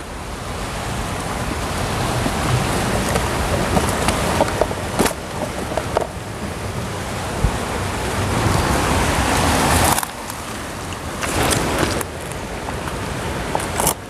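Steady rushing of a river in spring flood, with a few sharp clicks of a plastic tackle box being handled and opened.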